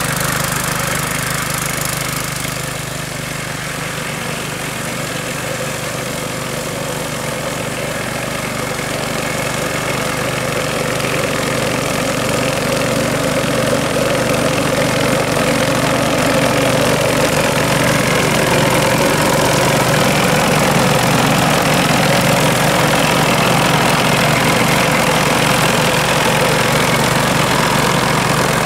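The small petrol engine of a walk-behind Rotakt mower runs steadily under load as it cuts through tall, dense grass. It grows gradually louder over the middle of the stretch.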